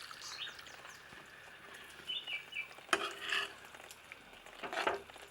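Spoon stirring a thick curry in a pan on the heat, with a faint sizzle and a few scrapes and knocks of the spoon against the pan about three and five seconds in.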